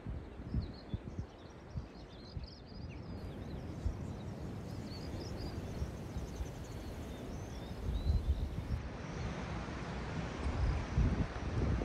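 Wind rumbling and buffeting the microphone in gusts, with birds chirping and twittering high above it. The wind is lightest in the middle and picks up again about eight seconds in.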